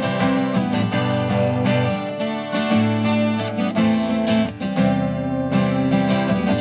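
Twelve-string acoustic guitar strummed in a steady rhythm, chords ringing between strokes, in an instrumental break between sung lines.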